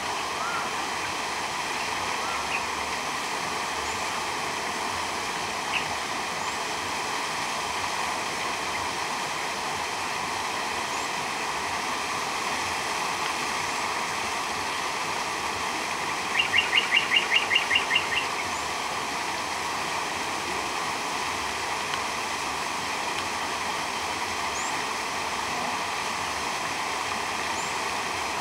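Steady rushing, splashing water. A little past halfway, a quick run of about ten sharp clicks lasts under two seconds.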